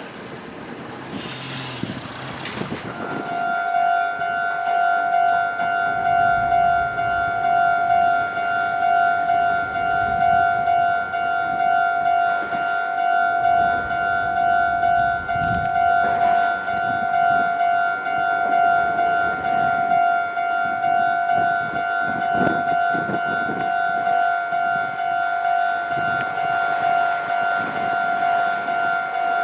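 Japanese railway level-crossing warning bell ringing: an electronic ding that repeats steadily. It starts about three seconds in, after the fading run of a passing train, and keeps ringing to the end.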